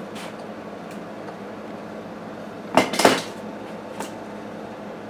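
Metal-on-metal clanks of hand tools against a part clamped in a steel bench vise: two sharp clanks close together about three seconds in, then a lighter one a second later.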